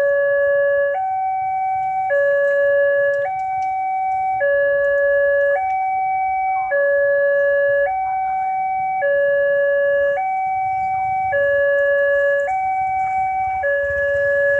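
Railway level-crossing warning alarm sounding while the red lights flash for an approaching train: two tones, one low and one higher, alternating about once a second.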